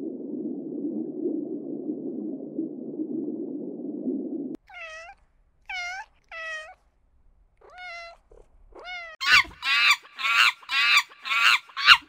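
A steady low rumble for about four and a half seconds, then a domestic cat meowing: a few separate meows, followed near the end by a fast run of louder meows, about two a second.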